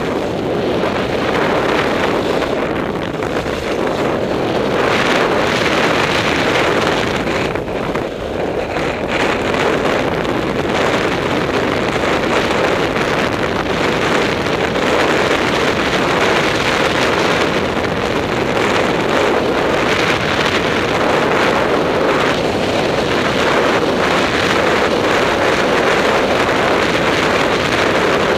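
Steady rush of wind over an action camera's microphone while skiing downhill, mixed with skis sliding and scraping over packed snow.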